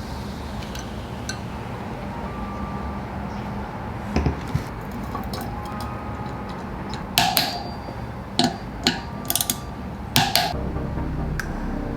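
Several sharp metallic clinks and knocks, the loudest about seven and ten seconds in, from bicycle drivetrain parts being handled and fitted, most likely cassette sprockets going onto the wheel's freehub body.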